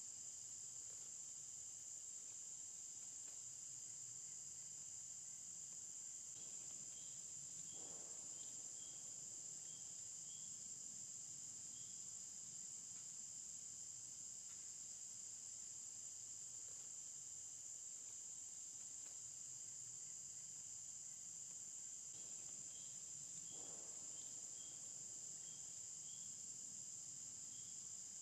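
Faint, steady chorus of insects in summer woodland, a continuous high trill with short chirps repeating in two stretches.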